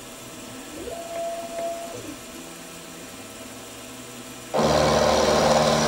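A milling machine's end mill takes a 10-thou facing cut across a steam-chest casting at a slowed feed. There is a quiet machine hum at first, then about four and a half seconds in the cutter bites into the metal and a loud, steady cutting noise starts.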